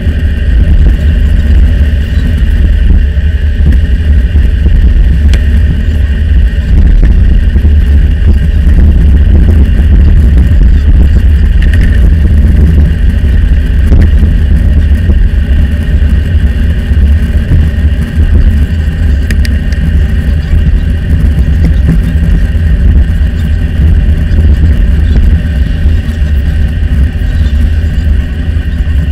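Steady, heavy wind rumble on a handlebar-mounted camera's microphone during a bicycle ride along a highway, with road traffic noise beneath it.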